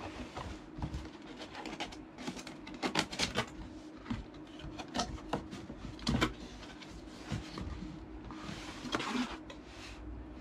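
Cardboard helmet box being opened by hand: the sleeve slid off and the flaps pulled open, a series of scrapes, taps and rustles, with a longer sliding rustle about nine seconds in.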